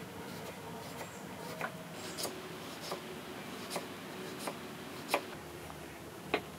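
Kitchen knife slicing a red onion on a wooden chopping board, each cut ending in a sharp tap of the blade on the wood, about eight taps at an uneven pace of roughly one a second or a little faster.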